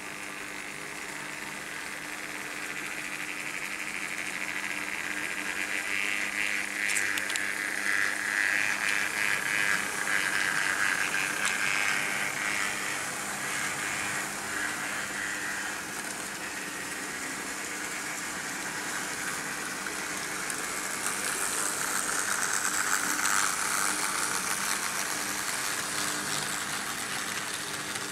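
Märklin H0 model trains running on metal M-track: a steady metallic rolling rattle of wheels on the rails over a constant low hum. It grows louder as the coaches pass close by about a quarter of the way in, eases off midway, and swells again near the end.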